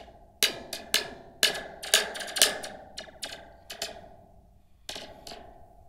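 Large metal helical spring cut from a toy, with a plastic cup on its end, tapped repeatedly with a pen: about a dozen sharp taps in uneven runs, each followed by a brief metallic ring, with a short lull a little after the middle.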